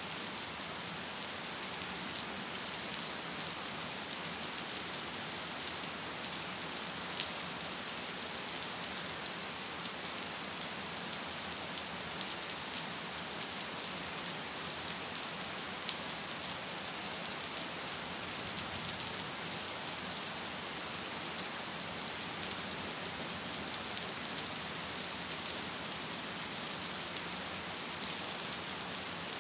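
Gentle rain falling steadily: an even hiss with scattered sharper ticks of single drops.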